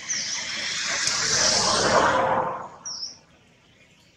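Two short, high downward bird chirps, one at the start and one about three seconds in, over a loud rushing noise that swells for about three seconds and then cuts off sharply.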